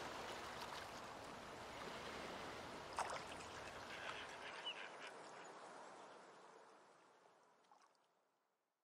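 Faint ambience of steady water-like noise with a couple of faint clicks and a short chirp, fading out about seven seconds in.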